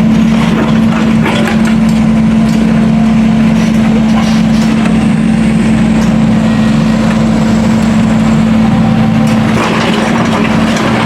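Heavy road-works machinery running steadily with a loud engine hum, along with crunching and cracking as old road material is broken up and dug out.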